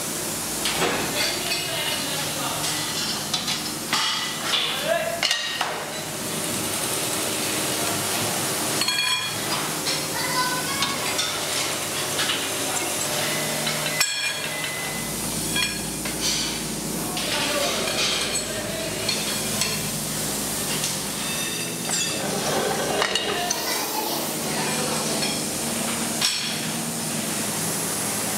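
Steel tubes clanking and clinking against each other and against metal surfaces as they are handled, over a steady machinery hum. The clatter comes in many irregular knocks and rattles, and the background changes abruptly a few times.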